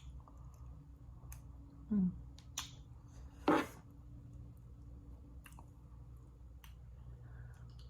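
Close-miked mukbang eating sounds: scattered wet mouth clicks and smacks while chewing, a brief low hum from the throat about two seconds in, and one louder short noisy sound about three and a half seconds in, over a steady low electrical hum.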